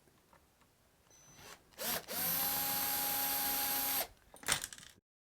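Cordless power drill-driver running steadily for about two seconds with an even whine, backing out a screw on a deadbolt, followed by a few short clicks.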